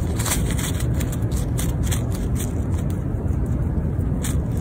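Quick scratching and rustling as a fox squirrel digs with its forepaws in soil and leaf litter, as a run of short irregular scratches over a steady low rumble.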